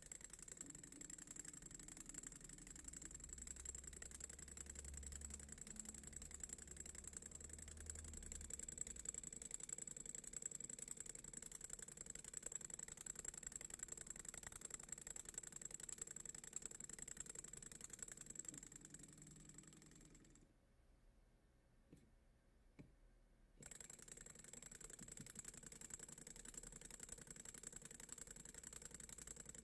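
Homemade free-piston Stirling engine running, heated by a small flame at one end of its tube, its piston rattling rapidly back and forth. About two-thirds of the way through it falls quiet for about three seconds, with a couple of clicks, then the rattle starts again.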